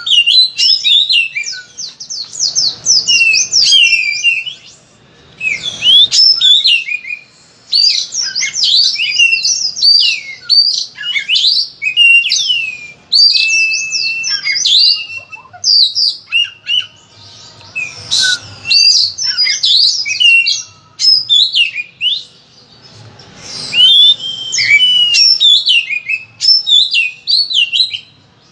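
Caged oriental magpie-robin (kacer) singing a long, loud bout of rapid, varied whistled phrases packed with imitated calls ('full isian'), with brief pauses between bursts.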